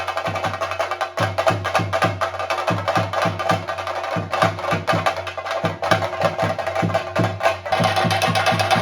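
Theyyam percussion: chenda drums beaten rapidly with sticks, under a steady ringing tone. Near the end the strokes settle into a fast, even roll.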